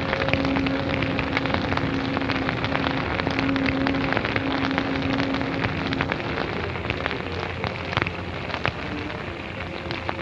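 Brush piles burning in a land-clearing fire, crackling steadily with many sharp pops and snaps.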